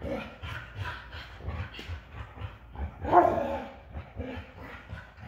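Dogs playing: scuffling with light thumps of paws on a rug, and one loud bark about three seconds in.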